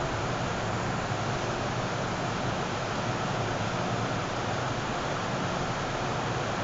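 Steady rushing noise with a low hum inside the passenger cabin of a first-generation MTR M-Train, standing still with its ventilation and onboard equipment running.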